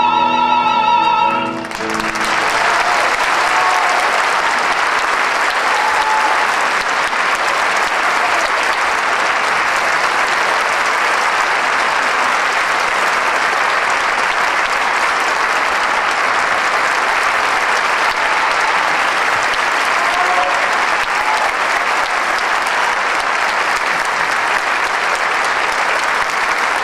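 The singers' final held note, wavering with vibrato, cuts off just under two seconds in, and a theatre audience breaks into sustained applause, with a few brief calls or whistles over the clapping.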